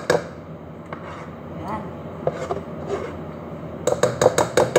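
A spoon tapping quickly against the edge of a container to knock off cake batter, about seven sharp knocks a second. The knocks come in a short burst near the end, with soft scraping before it.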